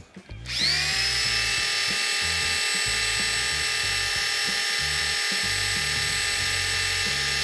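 Corded electric drill driving the oil pump of a Chrysler 440 big-block V8 to prime its oil system, pushing oil up to the lifters and rocker shafts. The drill spins up about half a second in, then runs at a steady speed with an even whine.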